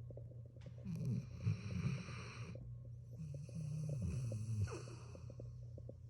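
Dog snoring: two long snores, the first about a second in and the second about three seconds in, each lasting close to two seconds.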